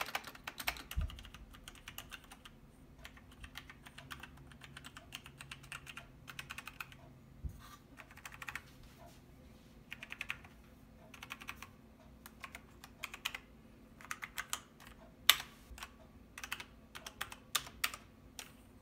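Logitech G910 Orion Spectrum mechanical keyboard being typed on: its Romer-G keys clatter in short runs of quick clicks with brief pauses between them, and there is one louder clack about fifteen seconds in.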